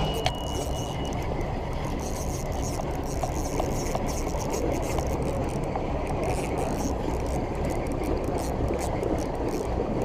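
Steady low rumble and hiss of a small fishing boat on the river, with a few faint ticks.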